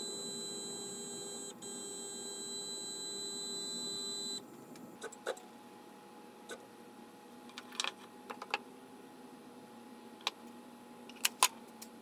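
Stepper motors on a home-built CNC router giving a steady electronic whine, which breaks off briefly about a second and a half in and stops abruptly after about four seconds. Then come scattered sharp clicks and taps of hands handling the machine's aluminium parts, the loudest two quick clicks near the end.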